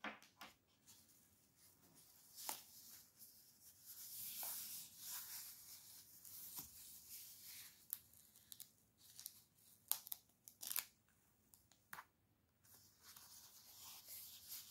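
Thin foam packaging sleeve being unfolded and peeled open by hand: soft rustling and crinkling broken by several sharp crackles, the loudest about ten and eleven seconds in, as its taped end flap is pulled free.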